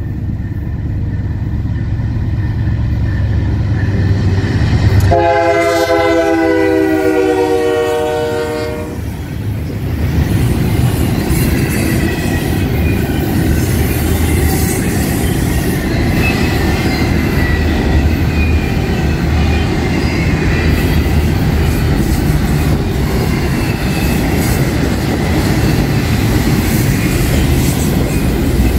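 CN AC44C6M diesel locomotive rumbling as it approaches. About five seconds in it sounds one long blast of roughly three and a half seconds on its K3L-R2 multi-note air horn, the chord dropping slightly in pitch. After that the double-stack container cars roll past with a steady wheel rumble, rail-joint clicking and faint flange squeal.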